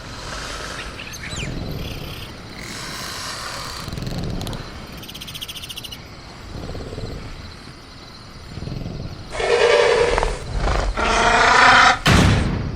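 Sound-effect velociraptor vocalising in a cage ambience: quieter mixed creature sounds at first, then a loud, long raspy call from about nine seconds in. Near the end a sharp hit cuts in before the call resumes.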